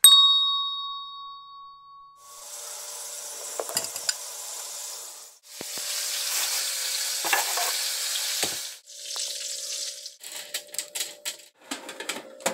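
A bright chime rings once at the start and dies away. Then comes a hissing, scraping noise in several short chunks with scattered clicks as pumpkin seeds are handled, and near the end rapid clicks and rattles as the metal mesh oven rack with the seeds is handled.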